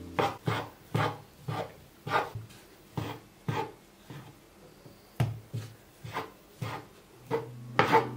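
A steady run of short soft thumps or knocks, about two to three a second, slightly uneven in spacing and loudness.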